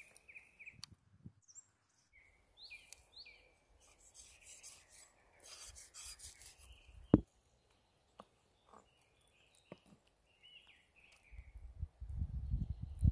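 Wooden sticks scraping and rasping as they are worked loose from a grilled salmon fillet's stick frame, with one sharp wooden knock about seven seconds in. Birds chirp in the background, and a low rumble comes in near the end.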